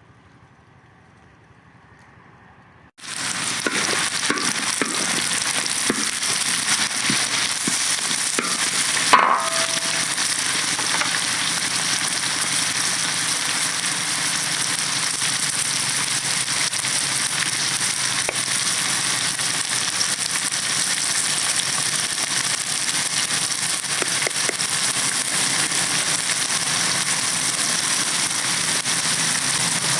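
Food frying in hot fat in a pan over a campfire, sizzling steadily with crackling spits. It starts suddenly about three seconds in, and there is one brief louder knock around nine seconds in.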